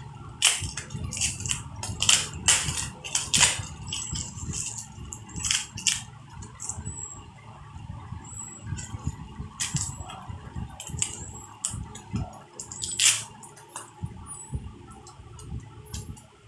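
Plastic bubble wrap crinkling as it is handled and pulled off items unwrapped from a parcel, with irregular sharp crackles that come thickest in the first few seconds.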